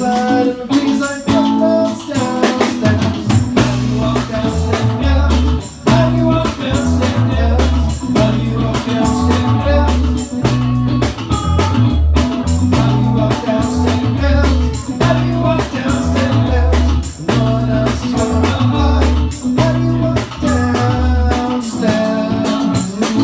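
Live band playing: a prominent electric bass line with drum kit and guitar, and a man singing.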